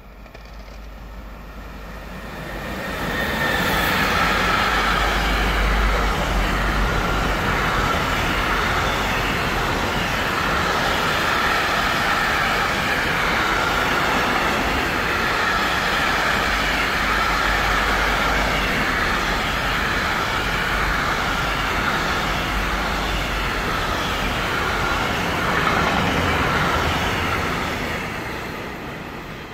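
Class 186 (Bombardier Traxx) electric locomotive hauling a long container freight train past: the rumble and rattle of wheels on rails builds over the first few seconds as the locomotive arrives, holds steady as the container wagons roll by, and fades near the end as the last wagons pass.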